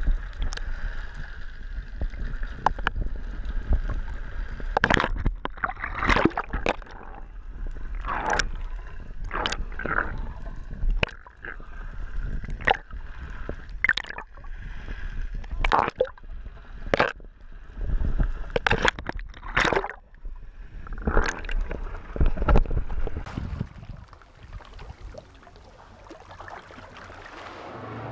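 Water gurgling and sloshing as picked up by an underwater camera, with many short knocks and splashes.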